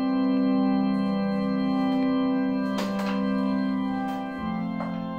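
Kurzweil KA-90 digital stage piano's church organ voice holding a sustained chord, which changes to another held chord about four seconds in. A few faint clicks sound over it.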